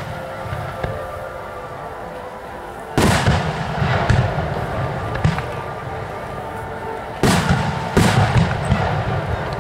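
Aerial firework shells bursting overhead: a loud boom about three seconds in and two more close together near the end, each trailing off in a low rumbling echo, with a few fainter pops between.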